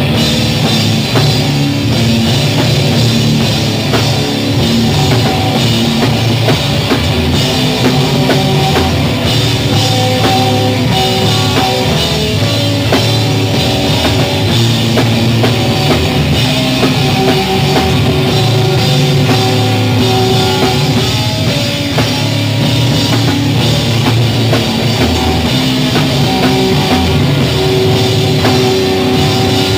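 Live post-hardcore rock band playing loud: electric guitar with the full drum kit, the drums and cymbals coming in right at the start.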